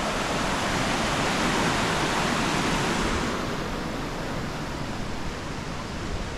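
Steady rushing roar of a waterfall, Narada Falls on the Paradise River. A little past halfway the hiss turns duller and slightly quieter.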